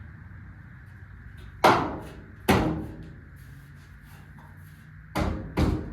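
Four sharp metallic clanks, each with a short ringing tail: two about a second apart, then two quick ones near the end. They come from sheet-metal work on a car's cowl panel, over a steady low background hum.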